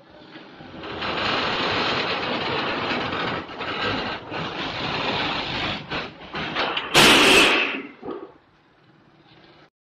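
A bundle of long steel construction beams scraping and grinding as it slides off the tilted bed of a truck during unloading. About seven seconds in comes one loud metallic crash of the steel, the loudest moment, and after that it goes fairly quiet.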